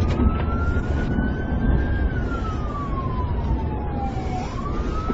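Police car siren in a slow wail: it rises over about two seconds, falls for about two and a half, and starts rising again near the end. Under it runs a steady low rumble of engine and road noise from the moving cruiser.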